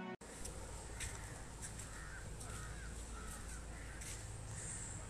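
Crows cawing repeatedly, a run of short caws about two a second starting about a second in, over a steady background hum.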